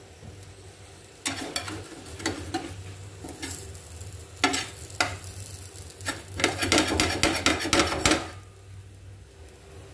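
A flat spatula scraping and knocking on a black nonstick pan, working loose a ragi (finger-millet) dosa that is sticking and breaking into pieces. Scattered scrapes, then two sharp knocks, then a burst of rapid scraping that stops about eight seconds in.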